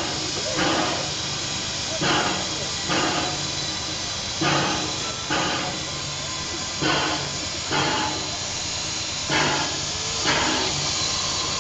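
Baldwin 2-8-2 steam locomotive moving slowly: its exhaust chuffs a little under once a second over a steady hiss of steam venting at the cylinders.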